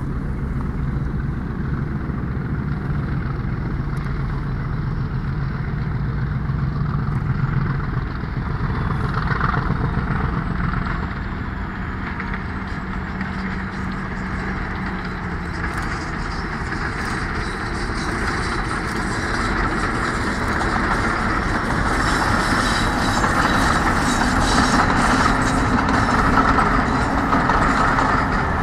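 Two British Rail class 50 diesel locomotives, each with an English Electric 16-cylinder engine, working a passenger train up a bank. Their engines give a steady drone that grows louder in the second half as the train passes.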